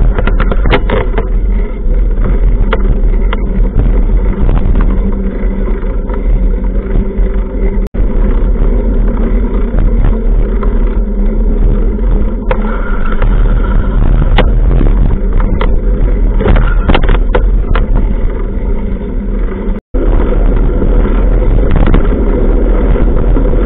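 Wind rushing over a bicycle-mounted camera's microphone while riding in city traffic, a loud steady low rumble with car traffic beneath it and scattered clicks and rattles. The sound cuts out briefly twice.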